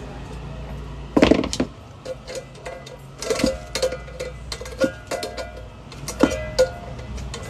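Pliers and a screwdriver knocking and clinking against a metal frying pan while its handle fitting is worked on. The pan body rings briefly after the sharper knocks, and the loudest knock comes about a second in.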